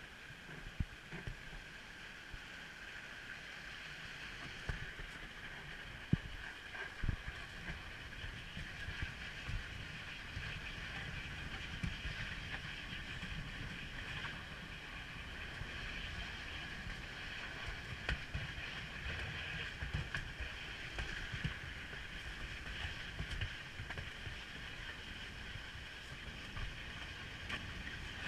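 Monte toboggan's wooden runners sliding down a steep asphalt street: a steady scraping hiss over a low rumble, with scattered short knocks from bumps in the road, growing louder over the first few seconds as the sledge picks up speed.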